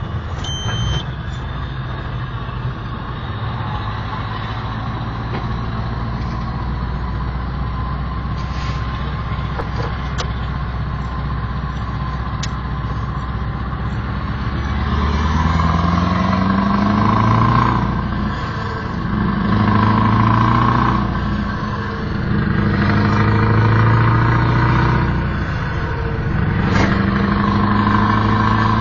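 Scania 164 480 V8 diesel truck engine heard from inside the cab, running steadily at first. From about halfway it pulls up through the gears: the pitch rises four times, dropping back at each gear change.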